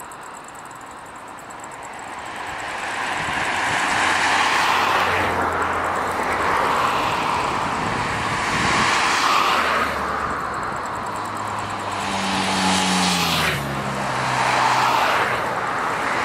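Distant roar of an Airbus A320-family airliner's jet engines at takeoff thrust during its takeoff roll. It builds about two seconds in, then swells and fades in slow waves as the aircraft accelerates down the runway.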